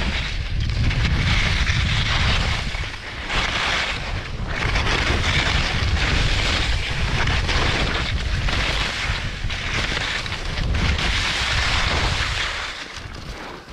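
Skis scraping and carving over chopped-up snow in a run of turns, the hiss swelling and fading with each turn, over heavy wind rumble on the microphone. It dies down near the end as the skier slows.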